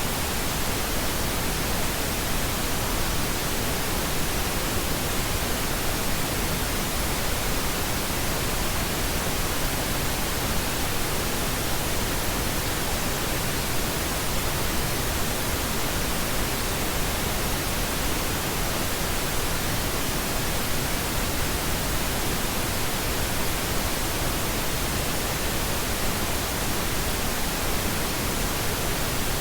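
Steady pink noise: an even, unchanging hiss spread across all pitches, with no events or variation.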